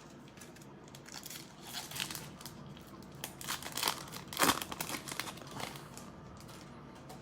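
Plastic wrapper of an NFL Mosaic trading-card pack being torn open and crinkled by hand: irregular crackling, loudest about four seconds in.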